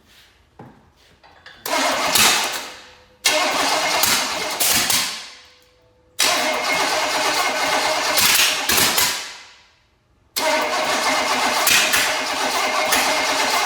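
305 cubic-inch small-block Chevy V8 cranked over in four separate bursts, running briefly on gas poured into the carburetor. Each burst starts suddenly and fades out.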